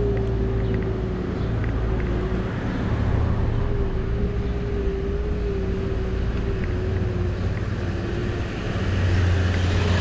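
Electric hub motor of a Bird rental scooter whining at a steady cruising speed, its single tone wavering slightly with speed and fading out near the end, over wind and road rumble. A van passes close alongside near the end with a swelling rush.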